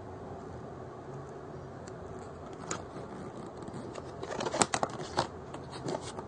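A run of light clicks, taps and rustles from a product and its packaging being handled, starting about a third of the way in and busiest near the middle, over a steady fan-like hum.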